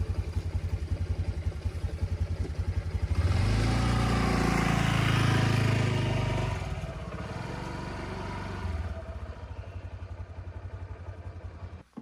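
A small engine running with an even pulsing beat. From about three seconds in it grows louder and rises in pitch, settles back after a few seconds, and cuts off abruptly near the end.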